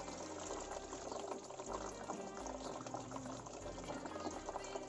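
Radiator flush solution gravity-draining from an open radiator petcock, running and splashing steadily into a plastic basin below.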